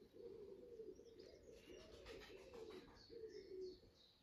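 Faint cooing of pigeons, a run of low rising-and-falling coos, with small birds chirping higher up.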